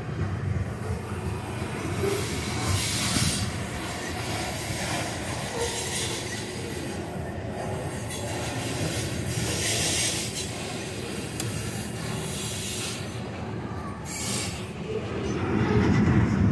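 Freight train of tank cars rolling steadily past a grade crossing: a continuous rumble of wheels on rail with several brief high hissing swells, growing louder near the end.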